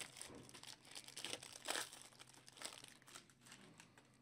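Trading card packaging crinkling and cards rustling as a box of baseball cards is opened and sorted by hand, in a run of uneven crackly strokes.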